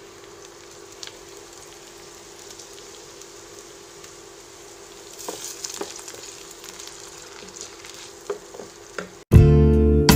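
Sliced carrots and green pepper frying gently in a pan, with a low sizzle and a few scattered taps and scrapes of a wooden spoon. About nine seconds in, loud guitar music starts abruptly.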